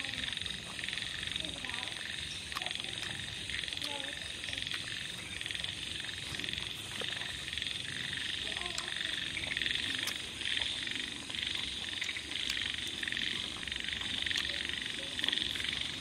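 Dense chorus of many frogs calling steadily.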